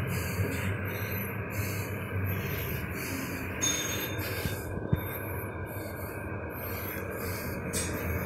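1980s Hitachi lift car travelling down with its doors shut: a steady rumble and hum of the moving car. Heavy breathing close to the microphone comes and goes over it.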